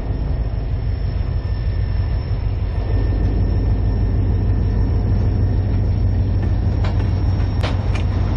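Diesel locomotive engine rumbling steadily as the locomotive creeps toward the crossing with a tank car, growing louder about three seconds in. A few sharp clicks come near the end.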